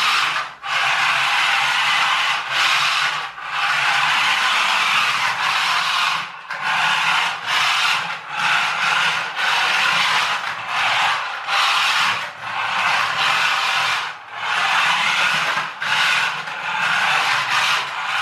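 The small electric drive motors and plastic gearbox of a toy pickup truck converted to radio control and run on a 2S LiPo, whirring in repeated bursts with short breaks as the throttle is pulsed. Its light tyres scrabble for grip on a hard floor.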